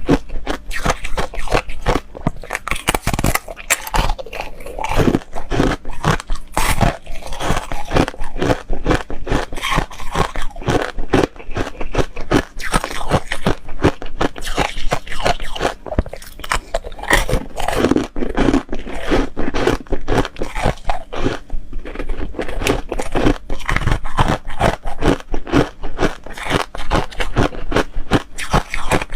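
Close-miked crunching and chewing of foam ice: dense, rapid crackling bites and chews.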